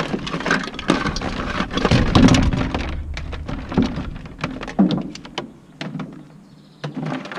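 Scrap household electrical wire being handled and sorted by hand. There is a dense clatter of clicks and rustling for the first three seconds or so, then scattered single clicks.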